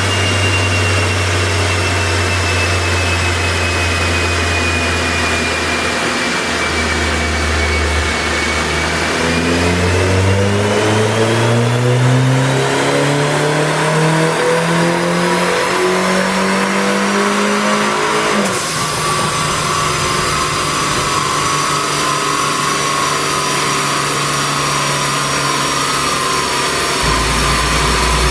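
Turbocharged 1.6-litre N14 four-cylinder of a 2008 Mini Cooper S on a chassis dyno: it runs steadily, then pulls, its pitch rising smoothly for about ten seconds. The pull cuts off suddenly as the throttle closes, and the engine runs on more steadily with a high whine above it.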